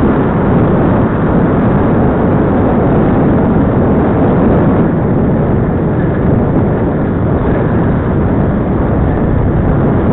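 Steady, loud wind rushing over the microphone of a camera carried on a moving bicycle.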